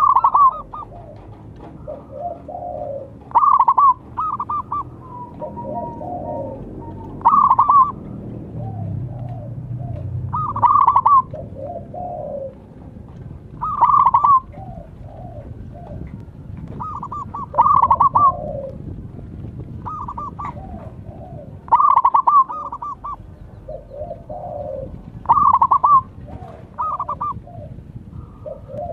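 Zebra dove cooing: its rapid staccato call phrase repeats about every three and a half to four seconds. Fainter, lower-pitched cooing phrases fill the gaps between the calls.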